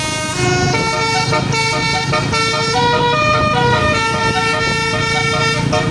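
Basuri 12-note telolet bus horn playing a tune: held horn notes, several sounding together, stepping from pitch to pitch every half second or so, over a low rumble.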